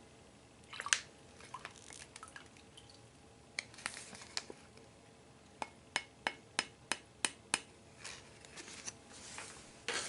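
Whisky dripping from a pouch into a glass: scattered small drips and clinks, then a run of about seven sharp drips, roughly three a second, past the middle, with soft handling noise near the end.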